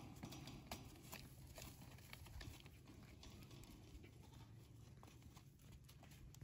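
Faint scattered ticks and soft shuffles of goat hooves shifting in sandy dirt, over a low background rumble.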